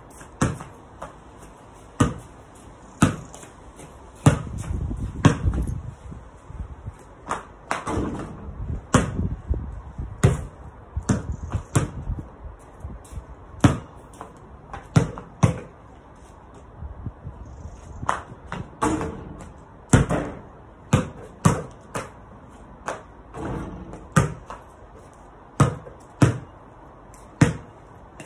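A basketball bouncing on hard paving and hitting the hoop during repeated shots: a string of sharp thuds at uneven intervals, sometimes one to two a second.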